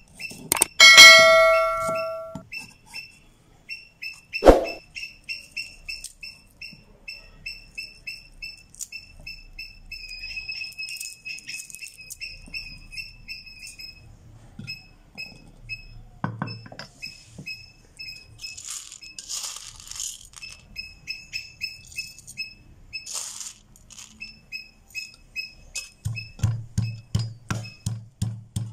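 Near the end, a wooden pestle pounds garlic in a wooden mortar with regular deep thuds, about three a second. Before that, a small animal gives a steady series of short high chirps, several a second. A loud ringing clank comes about a second in and a single knock a few seconds later.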